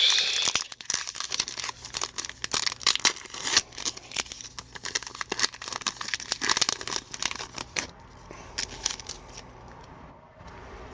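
An Upper Deck hockey card pack wrapper being torn open and crinkled by hand, a dense crackling for about eight seconds that then dies down to quieter rustling.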